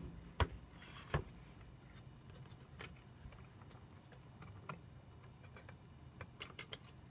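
Light clicks and taps of small parts being handled and fitted inside an open Mac Mini. A few sharper knocks come in the first second or so, then fainter scattered ticks.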